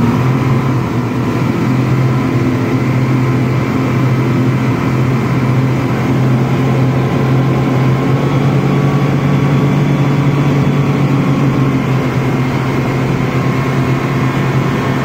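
Three Honda 250 hp V6 outboard motors running together under way at speed, a loud, steady drone that holds even throughout.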